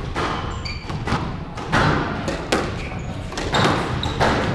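Squash rally: the ball smacking off rackets and the court walls in repeated sharp knocks, with short squeaks of court shoes on the wooden floor.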